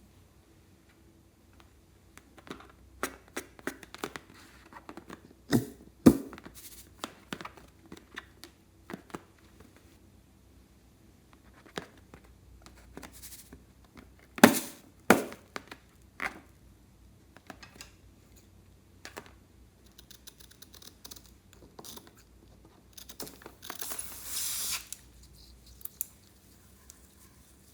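Slime-making materials being handled by hand: scattered sharp clicks and taps, a few louder knocks about six and fifteen seconds in, and a rustling, tearing noise for about two seconds near the end.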